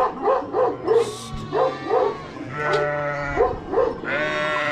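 A flock of sheep and lambs bleating: a quick run of short calls, then two long, drawn-out bleats.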